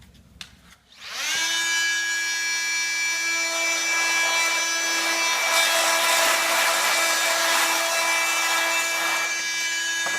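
Corded Bosch GOP 40-30 oscillating multi-tool starts about a second in, rising quickly to a steady high-pitched whine. Its Starlock blade rasps through plastic mini-trunking, with the cutting noise heaviest through the middle stretch.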